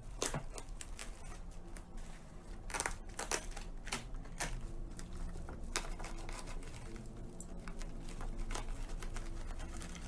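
Plastic bubble wrap crinkling and crackling as hands pull and unwrap it, with many irregular sharp crackles.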